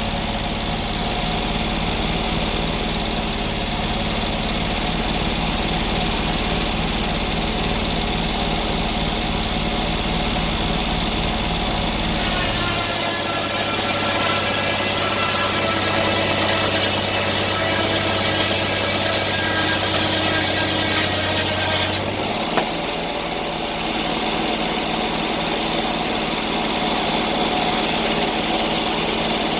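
Sawmill engine running steadily. For about ten seconds in the middle the low engine note changes and a higher whine comes in that rises and then falls, before the earlier steady sound returns.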